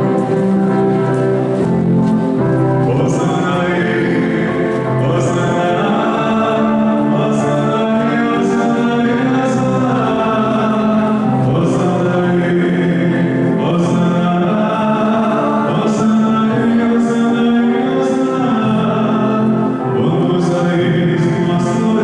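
A hymn sung by a group of voices, held notes moving in a slow, steady melody.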